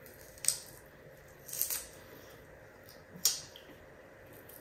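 Three short, sharp crackles of dried smelt being broken and chewed while eating it.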